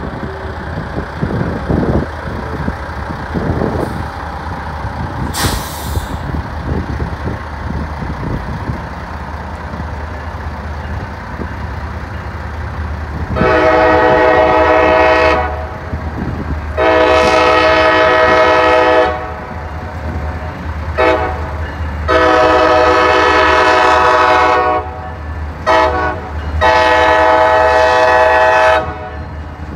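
CSX diesel freight locomotive's air horn sounding for the grade crossing, starting a little under halfway in: long, long, short, long, then another short and a final long blast, each a chord of several notes. Before the horn there is a steady low rumble.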